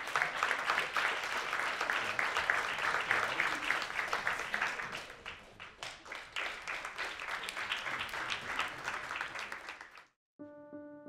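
Audience applauding with many hands clapping. It cuts off suddenly about ten seconds in, and piano notes begin near the end.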